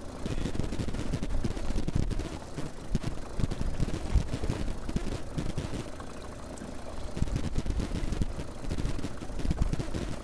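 Wind buffeting the microphone in gusts, an uneven low rumble with many short thumps, over choppy, wind-driven water.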